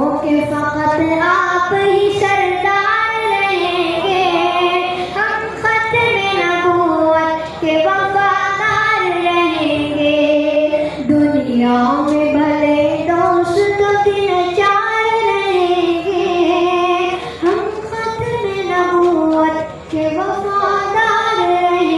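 A boy singing solo into a microphone, unaccompanied: long held notes in a high child's voice that bend up and down from phrase to phrase, with brief breaths between phrases.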